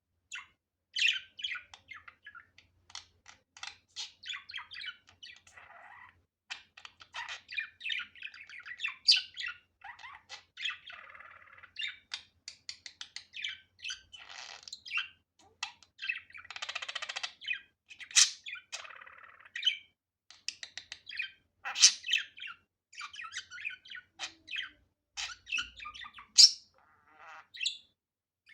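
Budgerigar chattering: a continuous run of quick chirps, warbles and short squawks, with a few sharper, louder calls among them.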